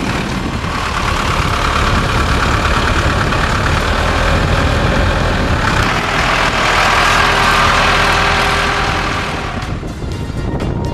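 Tractor engine running steadily, swelling a little past the middle and dropping back near the end.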